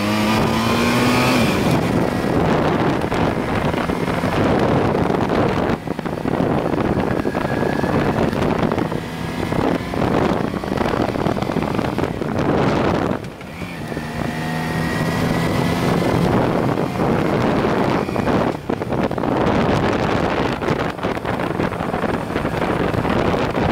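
BMW R1100RT's boxer-twin engine running under way beneath heavy wind noise on the microphone, its pitch rising as it accelerates near the start and again about fourteen seconds in, with brief dips in between.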